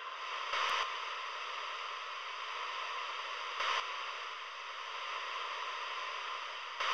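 Television static hiss, a steady wash of noise that swells briefly three times: about half a second in, about halfway through, and at the very end.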